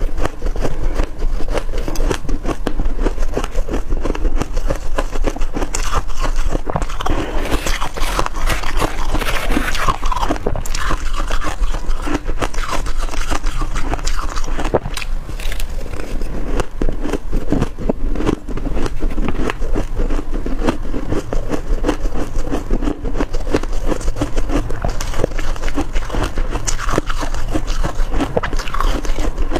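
Freezer frost being bitten and chewed close to the microphone: a dense, continuous run of crisp crunching and crackling.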